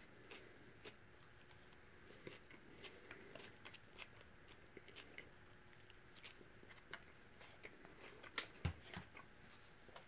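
Near silence: an SMC Laguna ceiling fan turning slowly on its built-in solid-state speed control, very quiet apart from a faint steady motor hum and scattered faint ticks. There are a couple of soft thumps near the end.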